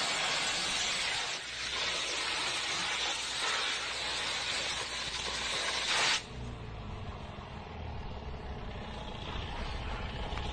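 A high-pressure washer jet blasts a car with a loud, steady hiss. It cuts off suddenly about six seconds in, leaving a quieter low steady hum.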